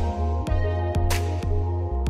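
Background music with a beat and deep bass.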